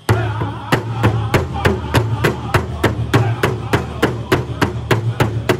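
Powwow big drum struck in unison by a group of drummers with padded sticks, a steady even beat of about three strikes a second.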